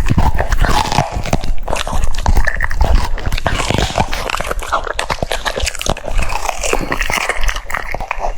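French bulldog chewing and crunching food close to the microphone, with rapid irregular bites and wet smacking.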